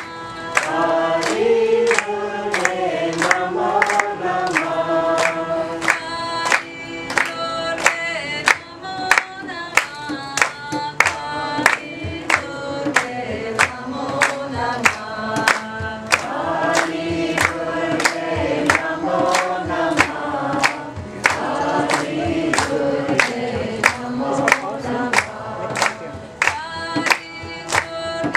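Kirtan: a group of voices chanting a melody together, over a held drone, with a steady beat of sharp percussive strikes about twice a second.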